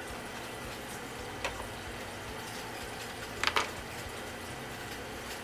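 Sewing machine stitching over a seam of hair tracks on a wig cap, its motor hum starting and stopping in short runs. There is a light click about a second and a half in and a sharper double click about three and a half seconds in.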